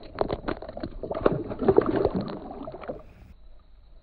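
Water splashing as a released Atlantic croaker thrashes at the surface beside a kayak: a quick run of irregular slaps and splashes, heaviest in the middle, that stops about three seconds in.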